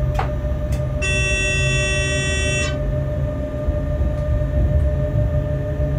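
Freight train in motion heard from the locomotive cab, a steady low rumble, with one horn blast of about a second and a half starting about a second in.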